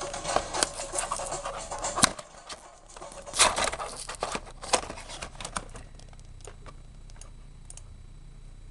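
Handling noise as a small die-cast toy engine is unboxed and handled: scattered clicks, taps and scrapes, busiest for about six seconds, then only a few faint ticks.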